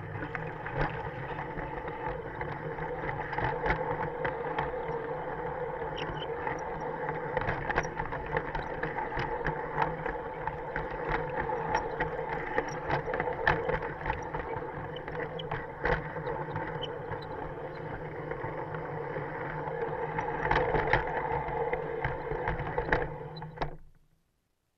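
LGB G-scale model train running, heard from a wagon: the locomotive's electric motor and gears hum steadily while the wagon wheels click irregularly over the rail joints. The sound cuts off about a second before the end.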